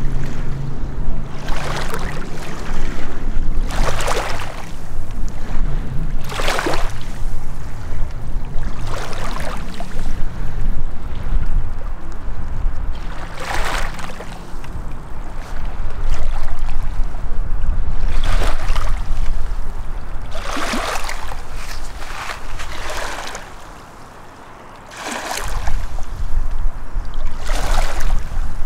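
Small lake waves washing in against a rocky shore every few seconds, each a short rush of water, over a steady low rumble that drops away briefly near the end.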